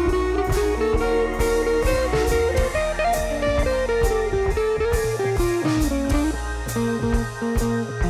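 Background instrumental music: a bluesy electric guitar melody over bass and a steady drum beat.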